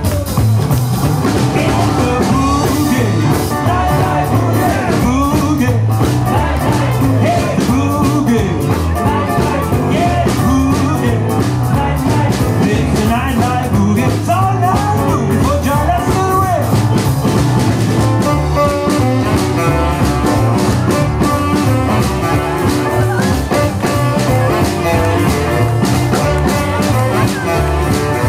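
Live jump-blues band playing a boogie: upright bass, electric guitar and drum kit keeping a steady, driving beat under a wavering lead line.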